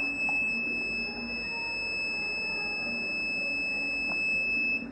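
Smart door lock's electronic buzzer sounding one steady, high-pitched alarm tone for nearly five seconds, then cutting off suddenly: the lockout alert for five wrong password entries in a row.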